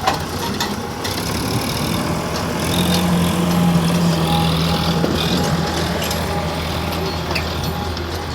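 Heavy diesel machinery engine running with a steady low drone, which grows louder for a couple of seconds midway before settling back.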